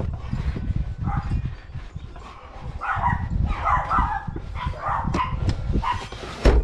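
A dog barking repeatedly, in short bursts about a second apart, over low knocks and rustling from work on the car's interior, with one loud knock near the end.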